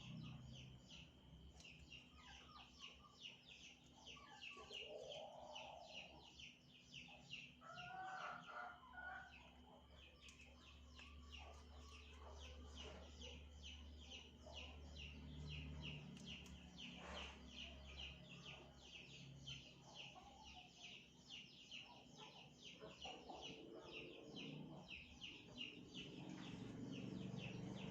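Faint bird calls: a few short clucking calls over a steady high-pitched chirp that repeats about three times a second.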